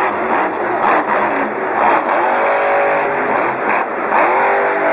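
Monster truck engines revving hard, the pitch rising and falling several times.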